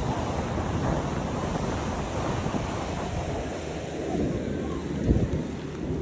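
Sea waves washing on the shore, with wind buffeting the microphone; a stronger gust hits about five seconds in.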